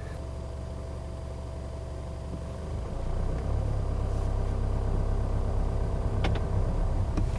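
Jaguar XE's 2.0-litre 180 hp four-cylinder diesel engine running warm, heard from inside the cabin. About three seconds in its low drone grows louder and deeper as the car starts moving slowly.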